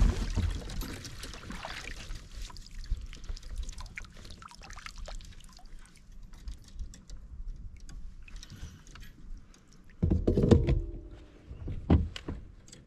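Water splashing as a bass is scooped into a landing net beside a kayak, then scattered clicks, knocks and rattles of the net and gear against the kayak. Two louder thumps with rustling come about ten and twelve seconds in as the netted fish is brought aboard.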